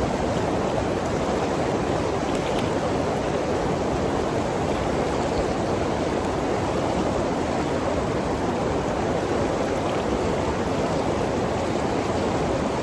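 Waterfall: water pouring and rushing without a break, a dense, even noise that is strongest in the low middle range.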